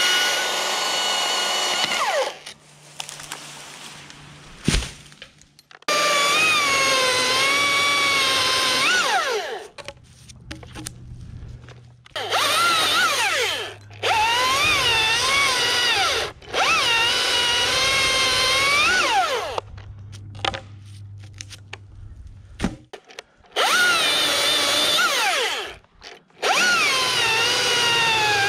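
Husqvarna T540iXP battery chainsaw cutting through a pine trunk in about seven bursts of a high electric whine, the pitch sagging as the chain bites into the wood and rising again, with short pauses between cuts. A single sharp knock sounds in a pause about five seconds in.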